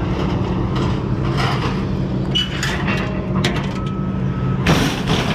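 Vehicle engine running with a steady low hum, with scattered rattles and clanks and a brief loud rush of noise near the end.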